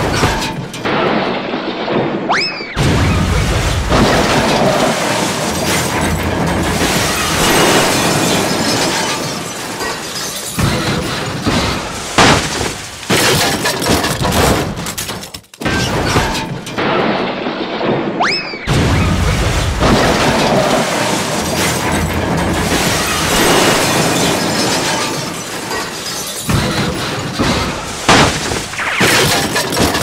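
Stock sound-effect crash: a brief whistle, then about twelve seconds of continuous smashing and breaking glass with heavy impacts. The whole sequence plays twice.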